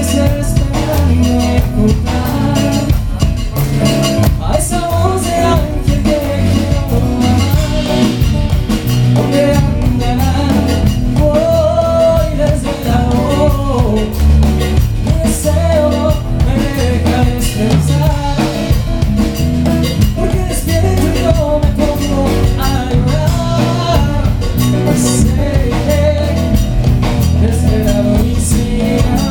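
Live band playing a Latin song with a steady beat on drum kit and congas, bass and keyboard, with a voice carrying the melody over it.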